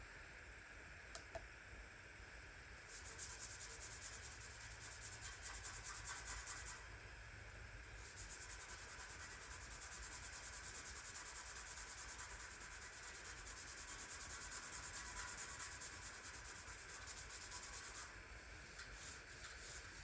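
Faint, fast rubbing strokes on a surface, going steadily from about three seconds in, with a brief pause around the seventh second, and easing off near the end.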